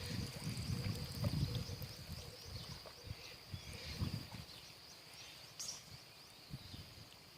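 Outdoor ambience: a steady high-pitched whine with many short chirps scattered over it, above an uneven low rumble that eases off about halfway through.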